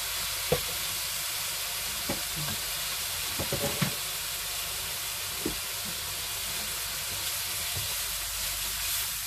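Beef sizzling steadily as it fries in hot oil, with a few sharp clicks as it is stirred.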